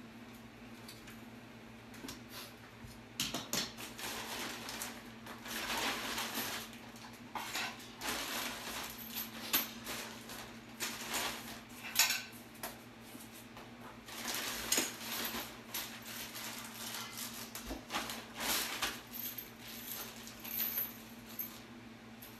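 Metal hand tools and small fittings clinking and rattling as they are handled, with many irregular clicks and knocks. A steady low hum runs underneath.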